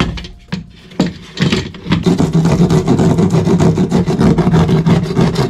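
A knock or two as the access panel is pushed into the hole, then from about a second and a half in a power drill fitted with a reciprocating-saw attachment runs steadily, trimming the edge of the opening in the ceiling board.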